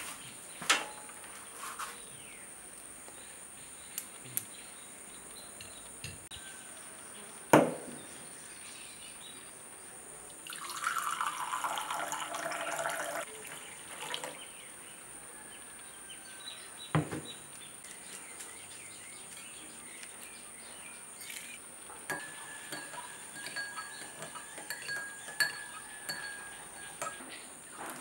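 Water poured into a ceramic cup for about three seconds, with a few sharp knocks of a plate and cup set down on a stone countertop, and lighter clinks and handling sounds near the end.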